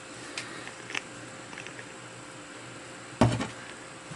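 A small three-jaw lathe chuck being worked by hand with its chuck key while the jaws are refitted: a few faint clicks in the first second, then one sharp knock a little past three seconds in.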